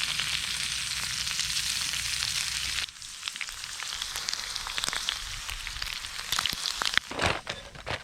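Meat sizzling and crackling as it fries in a pan, over a low rumble. About three seconds in the sizzle drops away sharply and goes on quieter, with a few louder pops near the end.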